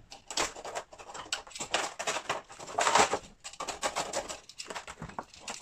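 Old lining and glue being scraped and picked off the metal ring of a lampshade frame with a hand tool: a quick, irregular run of scratches and clicks, loudest about three seconds in.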